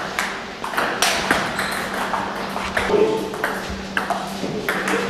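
Table tennis balls clicking off paddles and tables in quick, irregular hits, from several games being played at once.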